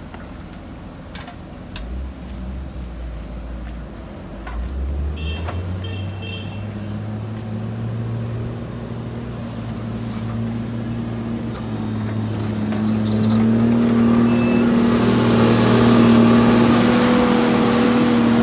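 Backhoe loader's diesel engine running and revving up, its note climbing about five seconds in and growing louder over the last few seconds. A few knocks and two short high beeps sound early on.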